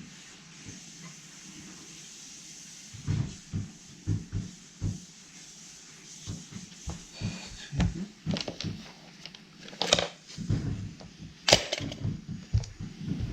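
Irregular knocks and clatter of objects being handled and set down, with two sharper clicks near the end.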